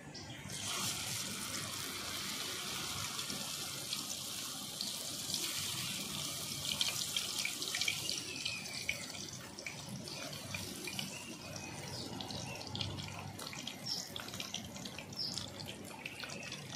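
Gram-flour-battered water lily pieces go into hot oil in a kadai and sizzle, starting suddenly about half a second in, with small crackling pops throughout. The sizzle thins a little after about eight seconds as the fritters fry.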